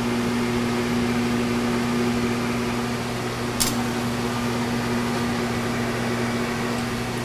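Steady machine-shop running noise: the hum of a rotary phase converter and a Kearney & Trecker mill under power, with a vacuum rushing air as it sucks fiberglass dust from the end of the tube being bored. A single short click about three and a half seconds in.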